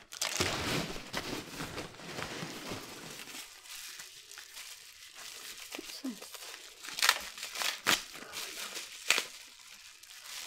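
Hands rummaging through polystyrene packing peanuts and plastic bubble wrap in a cardboard box: a rustling, crinkling plastic-and-foam noise, dense for the first few seconds, then lighter handling with a few sharp crackles of the bubble wrap near the end.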